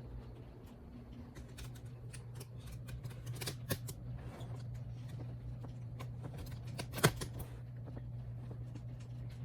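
Harbor Breeze Armitage 42-inch ceiling fan running with a steady low motor hum. Over it come irregular light clicks and ticks, with two sharper clicks about four and seven seconds in.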